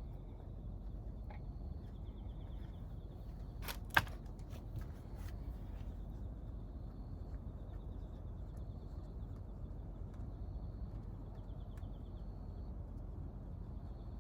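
A short cluster of sharp clicks, the loudest about four seconds in, over a steady low rumble. Faint high chirping repeats throughout.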